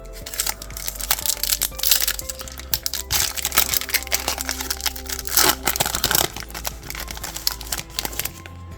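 Foil trading card pack wrapper crinkling and crackling as it is torn open and handled, over steady background music.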